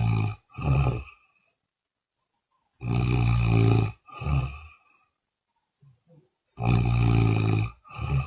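A woman snoring loudly in a regular rhythm: each breath brings a long buzzing snore of about a second, then a shorter one, with a quiet pause before the next, repeating about every four seconds.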